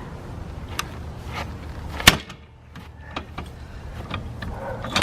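Bolt cutters biting into a disc lock: a few small clicks, then one sharp snap about two seconds in as the jaws cut through the lock's body.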